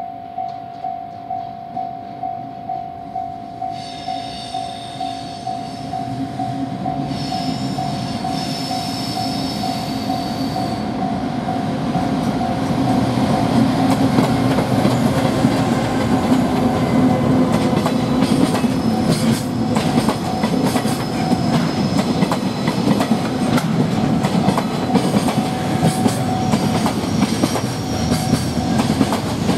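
A level-crossing warning bell rings about twice a second as a JR Freight EF510 electric locomotive approaches with a container train. Two sustained high-pitched tones sound between about 4 and 11 seconds in. The locomotive then passes and the container wagons rumble by, growing louder, with rapid clicking of wheels over rail joints.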